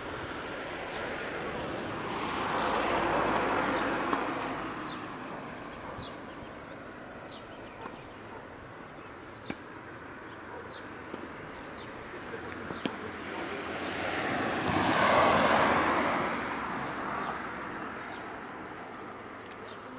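Two vehicles pass by on a road, one about two seconds in and a louder one about fifteen seconds in, each a swell of engine and tyre noise that rises and fades over a few seconds. Under them a cricket chirps steadily, a high chirp about twice a second.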